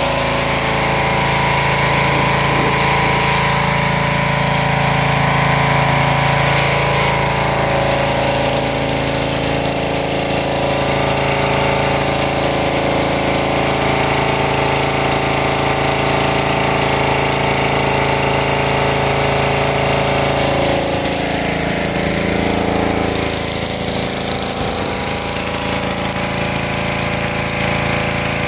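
Engine-driven pressure washer running steadily under load while its jet sprays water onto a concrete patio, a constant engine drone with the hiss of the spray over it. The engine's note shifts briefly about two-thirds of the way through.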